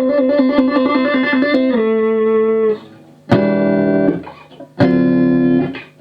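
Electric guitar, a Squier Telecaster on its front (neck) pickup, played through a 1973 Marshall 2061 Lead and Bass 20 amplifier's bass channel with a clean tone. A quick trill between two notes moves into a held note, then two chords are struck about a second and a half apart, each left ringing.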